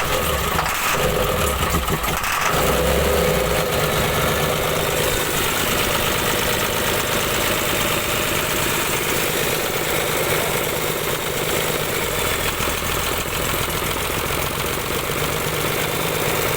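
Isuzu 6HK1 diesel engine being cranked on its starter, turning over steadily without firing up, with some uneven low pulsing in the first few seconds. The engine will not start, which the mechanics put down to worn injectors with too much back-leak.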